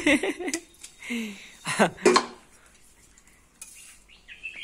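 Metal tongs clattering and scraping on an iron tawa (griddle) over a wood fire as a roti is lifted off, a few sharp clinks in the first two seconds, then quieter.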